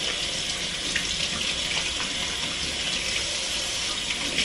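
Kitchen tap running steadily into a stainless steel sink, the stream splashing over chunks of meat being rinsed by hand, with a couple of faint clicks.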